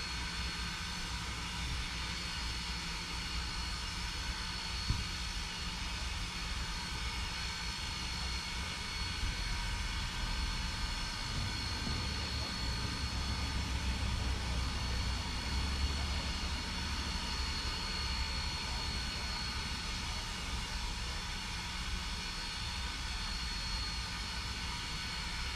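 Steam locomotive standing at the platform, idling with a steady low rumble and a steady high-pitched whine. About a third of the way in the low rumble swells for several seconds, then eases back.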